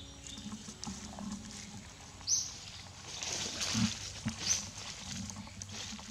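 Dry leaf litter rustling as a foraging macaque paws through it, loudest around the middle. Short high chirps recur every couple of seconds over the outdoor background.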